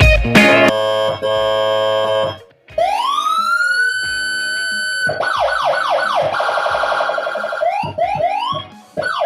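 Guitar music for about the first two seconds, then a Whelen electronic siren sounds. It starts as a wail tone that rises and holds steady, then switches about two seconds later to fast repeated up-sweeps and a warbling pattern, with a few quick sweeps near the end.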